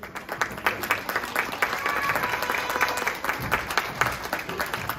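Audience applauding, many hands clapping together, coming in suddenly at the start.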